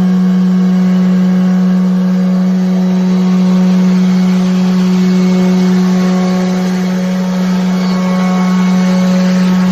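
CNC wood router's spindle running at a constant speed while cutting wood, a steady, loud, low-pitched whine with a rough noise over it. The level dips slightly around seven seconds in, then comes back.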